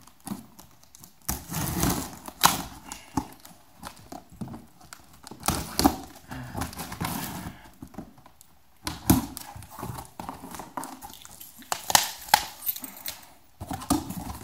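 Cardboard box being opened by hand: a key slitting the packing tape, then the flaps being pulled up and folded back, an irregular run of scrapes, rustles and sharp knocks.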